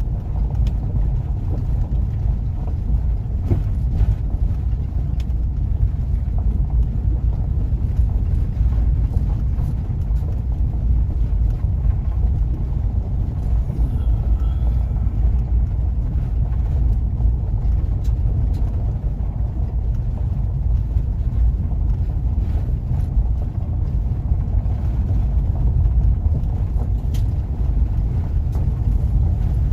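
Sprinter cargo van driving along a gravel road, heard from inside the cab: a steady low rumble of engine and tyres, with scattered faint ticks.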